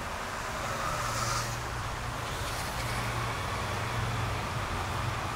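Road traffic on a city street: cars passing over a steady low hum, with a brief hiss about a second in.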